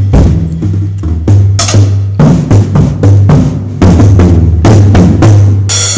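A small child playing a red Verve Percussion drum kit: loud, uneven hits on the bass drum and toms, about three a second. There is a brighter, longer-ringing crash about a second and a half in and another near the end.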